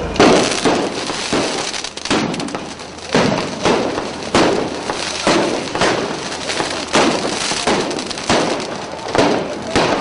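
Street-riot bangs and cracks: about a dozen sharp explosive bangs and smashes at irregular intervals, each trailing off in an echo, with a short lull about two seconds in.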